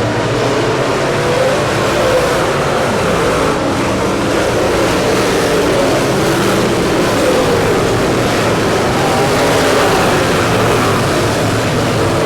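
Dirt late model race cars running on the track, engines under load, their pitch wavering up and down.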